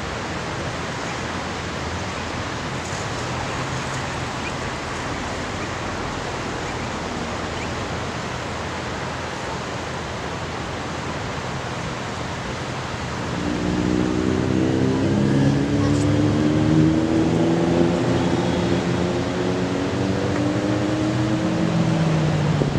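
Steady hiss of road traffic; from about 13 seconds in, a nearby motor vehicle engine comes in louder and runs on, its pitch drifting slightly upward.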